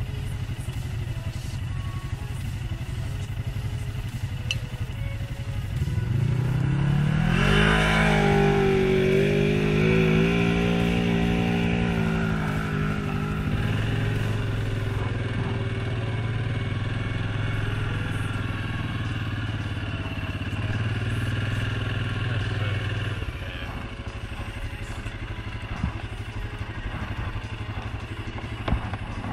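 Suzuki King Quad 750 ATV's single-cylinder engine on the move: a steady low drone, then about six seconds in it accelerates with a rising pitch and holds higher revs for several seconds. It settles into a steady run and eases off a little past twenty seconds.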